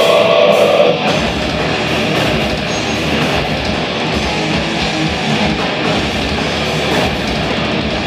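Live metal band playing loud distorted electric guitars and drums. A held note gives way to the full band crashing in about a second in, which then keeps up a dense, unbroken wall of sound.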